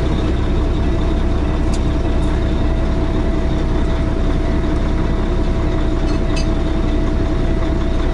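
Peterbilt 386 semi-truck diesel engine idling steadily, with a constant hum. Its air compressor is building air pressure through a newly replaced discharge hose. A couple of faint clicks are heard about two seconds in and again near six seconds.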